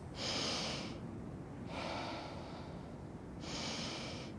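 Slow, deep breathing: a long breath in, a breath out about a second and a half later, and a second breath in near the end.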